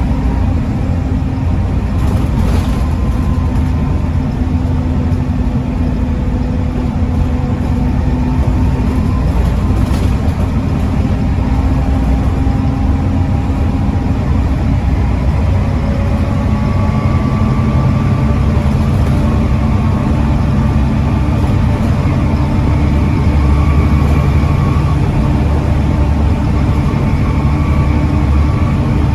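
Volvo B7TL bus's Volvo D7C 7.3-litre diesel engine running steadily under way, with a faint whine that slowly rises in pitch in the second half.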